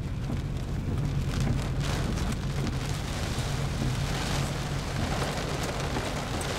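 Heavy rain pelting the roof and windshield of a storm-chase vehicle, a dense steady patter of drops, with a low steady hum from the vehicle running underneath.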